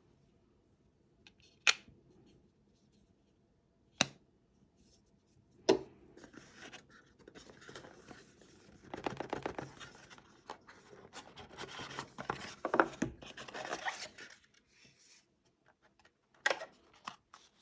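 Earbud charging case and cardboard packaging being handled: three sharp clicks a couple of seconds apart, then several seconds of scratching and rustling, and two more clicks near the end.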